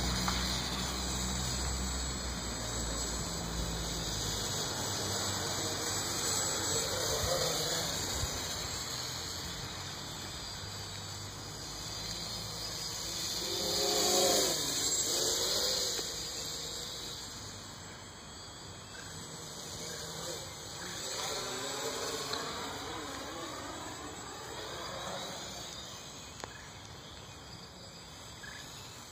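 X525 quadcopter's motors and propellers whining in flight, the pitch sliding up and down as it manoeuvres. It is loudest about fourteen seconds in, when it passes close, and fainter as it moves away.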